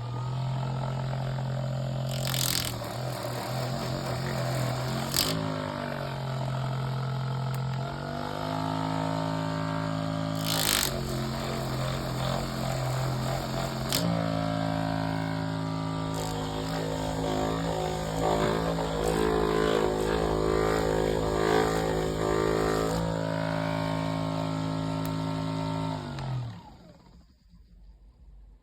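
Ekrin B37 percussion massage gun motor running with a steady buzzing hum, its pitch shifting in steps several times as the speed setting is changed, with a few sharp clicks. It cuts off near the end.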